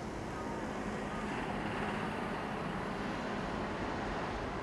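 Diesel locomotive approaching from a distance with a train, a steady rumble with a low engine hum that slowly grows louder.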